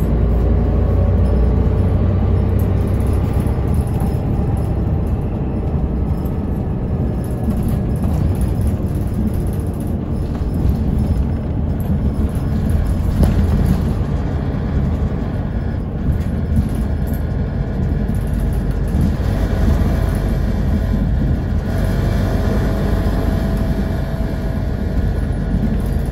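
Steady low rumble of engine and road noise inside a city bus on the move.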